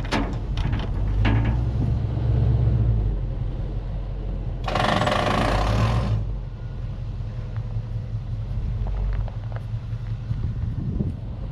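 Machinery running with a steady low rumble, with several sharp metal knocks in the first second or so and a burst of hissing about five seconds in. The rumble drops away after about six seconds.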